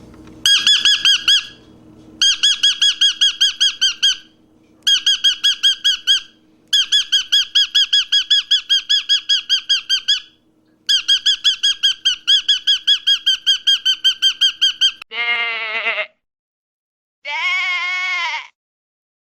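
An animal's rapid high-pitched squeaking calls, repeated about seven times a second in five bouts of one to four seconds. Near the end, two long bleats from a sheep.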